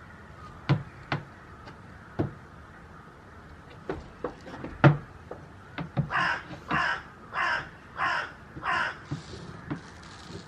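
Several sharp knocks of goat hooves on wooden planks and stone slabs, then a bird's harsh call repeated five times, evenly spaced about two-thirds of a second apart.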